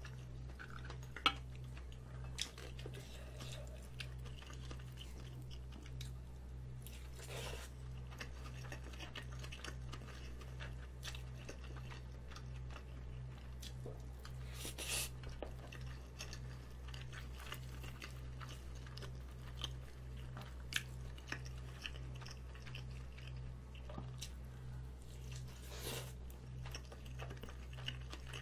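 Close-up chewing and mouth sounds of a person eating Spam kimchi stew and rolled omelette with rice, with occasional short clicks. A steady low hum runs underneath.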